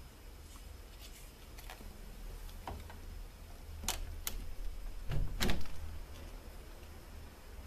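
A kitten's paws tapping and bumping against a glass window pane: a few light sharp taps about four seconds in, then a louder knocking bump a second later.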